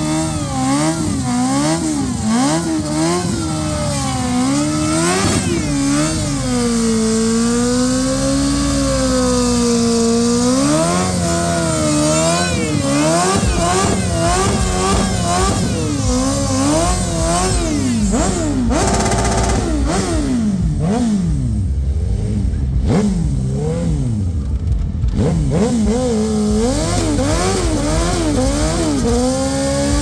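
Motorcycle engine revved hard and repeatedly, the pitch rising and falling over and over with one longer held pull, while the rear tyre spins in a smoky burnout.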